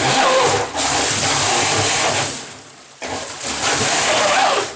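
Electric jet drive unit with a 53 mm impeller running submerged in a bathtub, throttled up in two bursts: the water jet churns and splashes loudly, with a motor whine that glides in pitch as the throttle changes.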